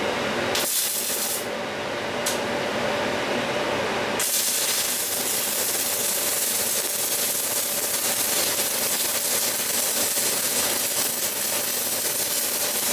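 Stick (MMA) welding arc from a Weldkar 1630 inverter welder on steel plate: two short sputters as the electrode arc is struck, then a steady hiss of the burning arc from about four seconds in.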